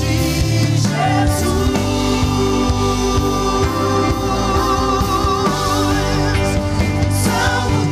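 Gospel worship music: a band playing sustained chords while a voice holds long notes with vibrato and sings no clear words.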